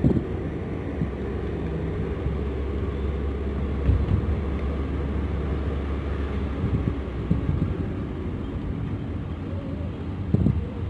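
Steady low rumble of a moving vehicle, engine and road noise heard from inside the cabin, with a few short low bumps.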